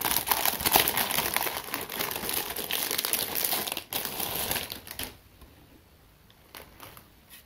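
Clear polythene wrapper crinkling as a boxed hard-drive enclosure is slid out of it, for about five seconds. After that come a few light handling clicks.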